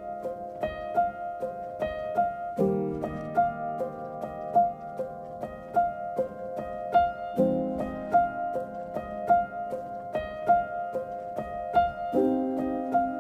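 Background music: a piano or keyboard melody of evenly spaced plucked notes over chords that change every few seconds.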